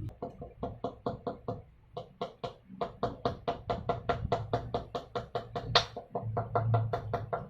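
Rapid light hammer taps, about five a second with short pauses and a few harder blows, driving a dust seal into a motorcycle wheel hub.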